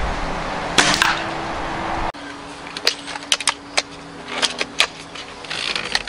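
Strong wind buffeting the microphone, with one sharp crack about a second in. After a sudden cut, a break-barrel spring-piston air rifle being cocked and loaded: a string of light metallic clicks over a faint steady hum.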